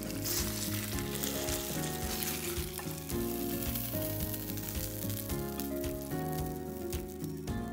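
Breaded veal loin steak, fresh from the oven, sizzling and crackling in its hot juices in the baking dish as it is lifted out with a spatula. The sizzle stops near the end. Background music with steady held notes plays under it.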